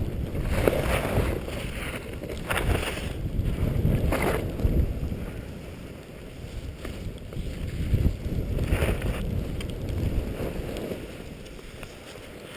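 Skis hissing through powder snow in repeated swells as the skier turns down the slope, over a steady rush of wind on the microphone. It quietens near the end as the skier slows to a stop.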